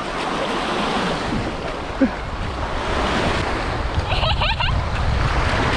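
Small sea waves washing steadily onto a sandy shore, with wind buffeting the microphone.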